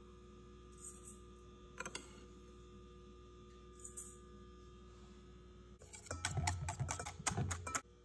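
Wire whisk beating eggs and sugar in a stainless steel bowl, clattering against the metal in a quick run of strokes, roughly five a second, for about two seconds near the end. Before that, a few faint light clicks over a low steady hum.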